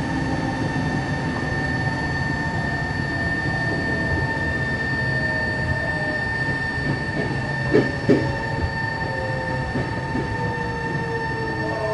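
Interior running sound of a Tokyo Metro 03 series car with shunt chopper control: a steady high whine over rumble, with a lower whine falling steadily in pitch through the second half as the train slows. Two wheel knocks about eight seconds in.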